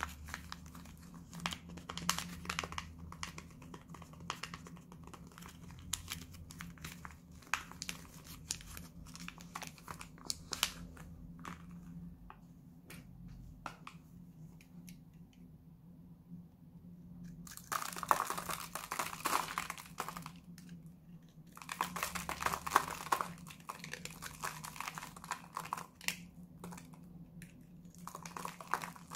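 Paper wrapper of a Lux soap bar crinkling and tearing as it is unwrapped, with small handling clicks. After a quiet pause, a snap-off utility knife shaves the dry bar soap into crunchy flakes in two long spells, with more crackling near the end.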